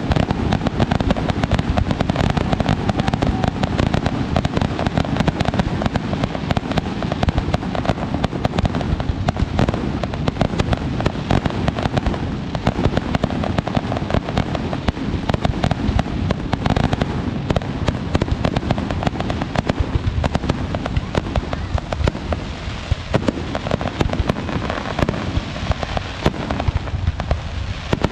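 Aerial fireworks bursting in a rapid, unbroken string of bangs and crackles.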